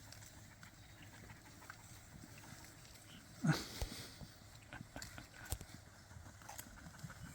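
A single short animal call about halfway through, falling steeply in pitch, over faint outdoor background with a few scattered light knocks.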